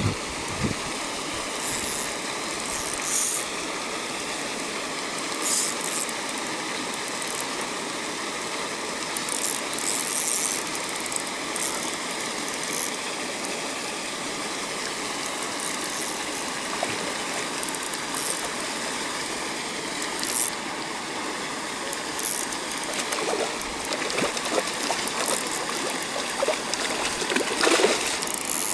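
A spinning reel winding and ratcheting as a rainbow trout is played on the line, over a steady rush of water from the pond's water jet, with short higher bursts every few seconds. Near the end the trout splashes at the surface close by.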